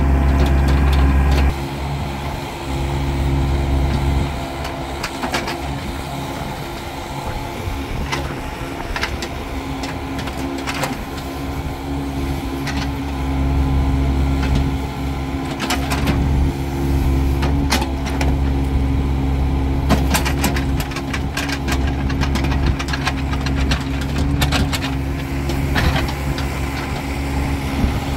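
Doosan 55V mini excavator's diesel engine running steadily under digging load, growing louder and heavier at times as the hydraulics work the bucket. Scattered knocks and scrapes of the bucket in wet soil sound over the engine, mostly in the second half.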